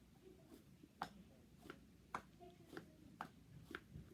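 Faint, sharp clicks of a plastic fidget toy being worked in the hands, about two a second.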